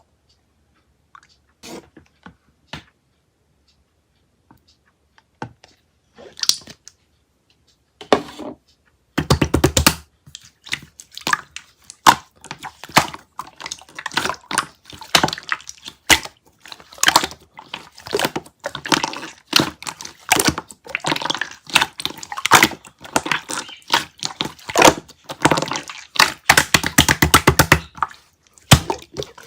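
Clear slime being worked by hand, making wet clicks and pops: a few scattered ones at first, then from about nine seconds in a dense, continuous crackling run.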